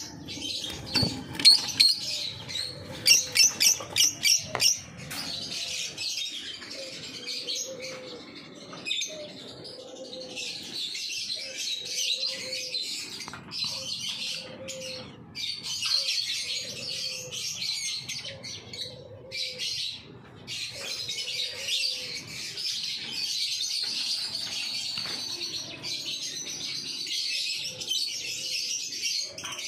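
Many small aviary birds, parakeets among them, chattering and chirping without a break. A quick run of loud sharp calls comes about three seconds in, and a low note repeats roughly once a second through the middle.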